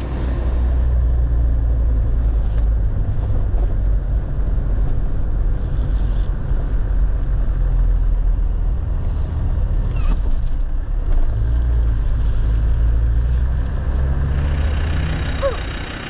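A car being driven, a loud steady low engine and road rumble whose pitch rises a little near the end.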